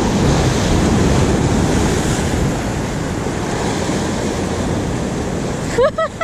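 Ocean surf breaking and washing over jetty rocks, a steady loud rushing, with wind buffeting the microphone.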